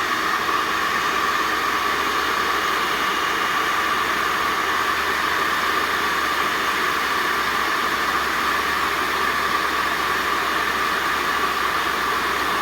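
Handheld hair dryer running steadily on its top setting, blowing air onto a fidget spinner: a loud, even rush of air with a steady whine.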